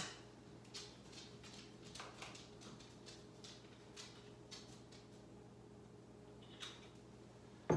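Faint, scattered light clicks of a dog's claws on a hard kitchen floor, over a steady low hum, with one sharper knock near the end.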